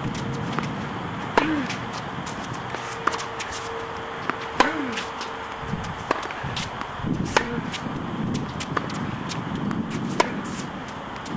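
Tennis rally: the ball is struck by rackets and bounces on the hard court about every one and a half seconds, loud sharp hits from the near player alternating with fainter ones from the far end, over a steady outdoor background hiss.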